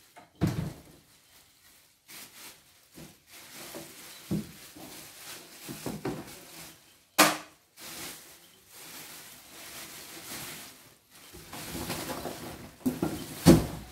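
Clear plastic packing bags rustling and crinkling while a cardboard box is unpacked, with its flaps handled. There is a sharp knock about seven seconds in, and dull thumps near the start and near the end.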